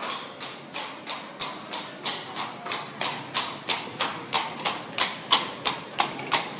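Horse hoofbeats, an even clip-clop of about three strikes a second, growing louder.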